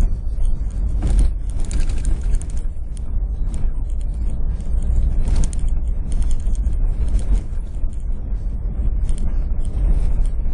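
Car driving on a sandy dirt road, heard from inside the cabin: a steady low rumble of engine and tyres, with irregular knocks and rattles from the car shaking over the bumps.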